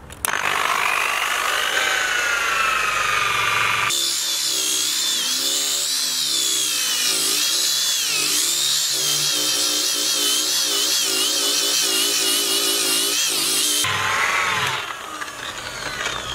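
Rotary car polisher with a wool pad running at a slightly higher speed setting, cutting compound into paint to level a scratch. Its motor whine wavers in pitch as the pad is pressed and moved across the panel. Near the end the whine falls in pitch and gets quieter.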